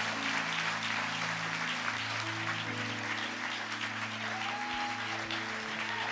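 Congregation applauding, with music of slow, held chords underneath.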